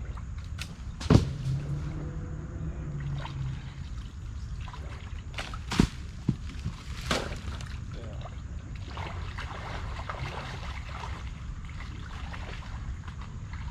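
Shallow river water sloshing and splashing around someone wading and handling trash. A few sharp knocks and clatters stand out, the loudest about a second in and again near six seconds, over a steady low rumble.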